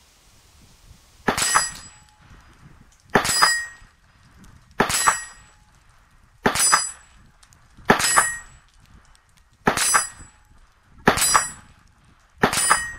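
Eight .22 LR shots from a Bushmaster Carbon-15 rifle fitted with a .22 LR conversion bolt, fired about every second and a half, each followed at once by the short ring of a metal gong target being hit.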